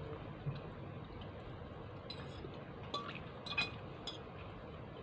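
A metal fork clinking against a plate while eating spaghetti: a few light, separate clinks in the second half, the loudest about three and a half seconds in.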